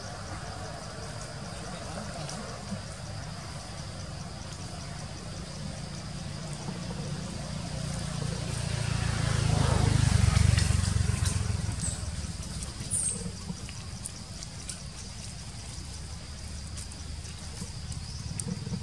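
A vehicle passing on the road, its low rumble swelling to a peak about halfway through and then fading away. A steady high insect drone runs underneath.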